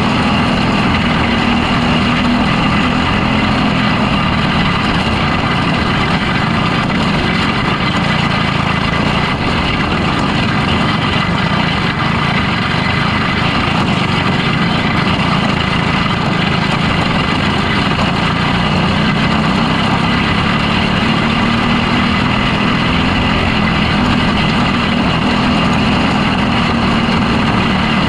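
Onboard sound of a box stock micro sprint car's engine running hard through laps on a dirt oval, loud and continuous, its pitch sagging and climbing again as the driver works the throttle through the turns.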